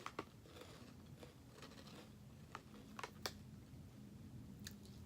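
Faint, scattered crunches and clicks of people chewing crunchy crab-shaped snack chips.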